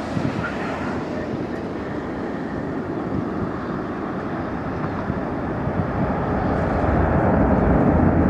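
Twin-engine jet airliner's engines at high power on the takeoff roll: a steady, broad rush of jet noise that grows louder and deeper over the last couple of seconds. A car passes close by at the start.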